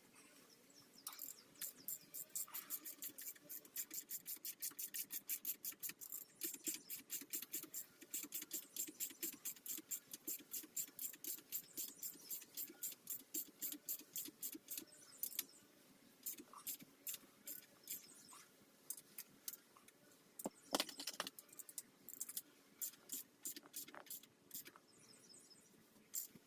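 Rapid, evenly spaced clicking, about five clicks a second, for roughly fifteen seconds, then slower scattered clicks and a couple of louder knocks.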